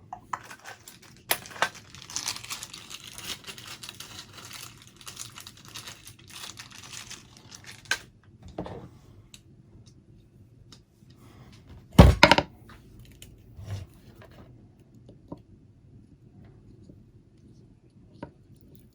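Crackling, rustling handling sounds with many small clicks for several seconds, then a single loud knock about twelve seconds in, followed by a few faint clicks.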